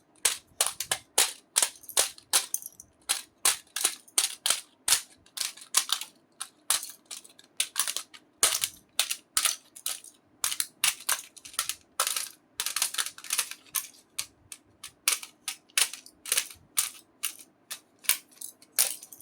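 Sharp plastic clicks and snaps from a Zebronics keyboard's keys and parts being handled, about two or three a second in an uneven run.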